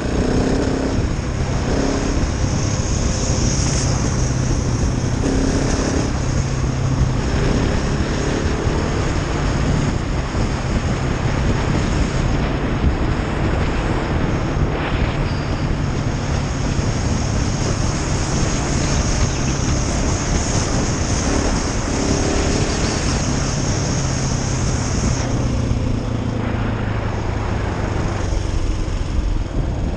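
A KTM 690 Enduro R's single-cylinder engine pulling steadily under way on a dirt road, its note rising and falling a little with the throttle and dropping lower near the end, over a steady rush of wind and road noise.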